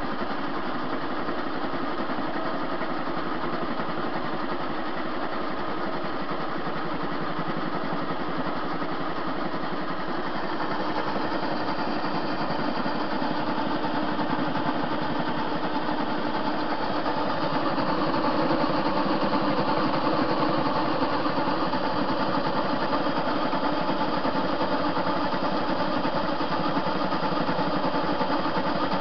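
TV-16 metal lathe running steadily under power feed: motor and gearing turning while the cutting tool takes a cut along a metal bar. The sound grows slightly louder partway through.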